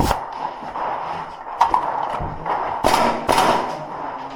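Airsoft gear being handled: about five sharp clacks and knocks spread over four seconds, as an HPA air line and tank are fitted to a Tokyo Marui Saiga 12 shotgun.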